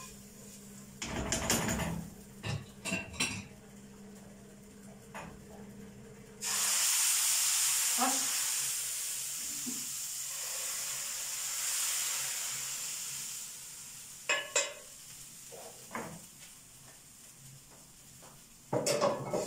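Hot ta'leya of garlic and coriander fried in ghee scraped from a frying pan into a pot of mallow stew. About six seconds in it hits the stew with a sudden loud sizzle that fades away over several seconds. A spatula clanks against the pan before and after.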